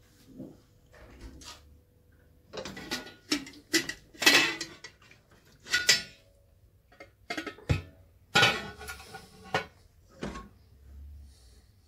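Stainless-steel pressure cooker lid being unlocked and lifted off the pot: a run of metallic clicks, scrapes and clanks, some ringing briefly.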